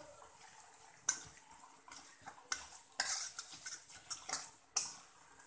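A metal spoon stirring and scraping in a steel kadai, with a string of sharp scrapes and clinks about every half second to a second from a second in. Under it a faint sizzle of mustard seeds, urad dal and dried red chillies frying in hot oil for a tempering.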